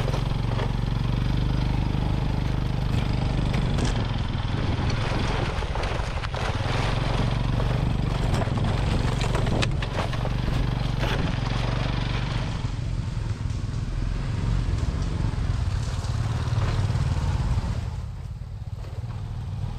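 Motorcycle engine running steadily while riding, with a rushing noise over it. The rushing drops away near the end, as if the bike slows.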